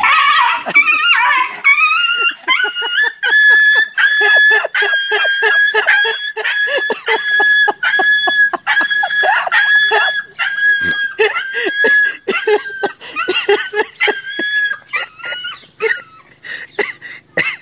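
A dog crying out over and over in loud, high-pitched yelps, about two a second, each held at nearly the same pitch. The first cries glide up and down; they thin out and stop near the end.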